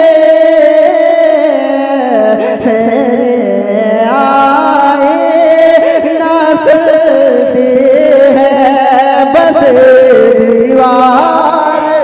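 A man's voice singing a naat, an Urdu devotional poem, in long, melodic phrases whose pitch bends and wavers in ornaments.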